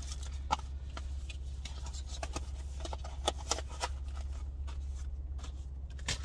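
Small clicks and rustles of a glasses case, cloths and paper instruction cards being handled, with a few sharp ticks scattered through, over a steady low hum inside a car.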